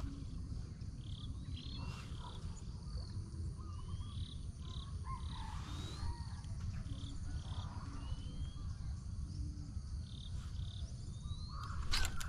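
Outdoor rural ambience: repeated short high chirps and rising whistled notes from small wild animals, over a steady high insect whine and a low rumble. A sharp click near the end.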